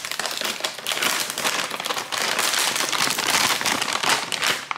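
Metallised anti-static bag crinkling and crackling as it is unsealed and handled.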